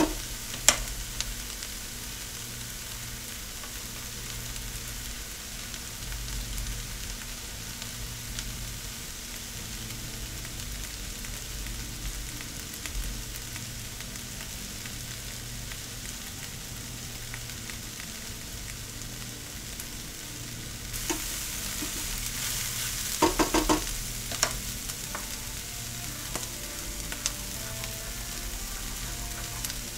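Sliced peppers and onions sautéing in oil in a pan: a steady sizzle that grows brighter about two-thirds of the way through. A few clicks and knocks stand out near the start and in a short cluster about three-quarters of the way through.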